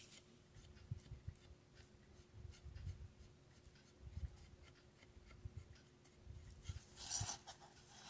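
Faint scratchy strokes of a paintbrush on a small wooden birdhouse, with soft low bumps as it is handled on the table; a louder scrubbing stretch about seven seconds in.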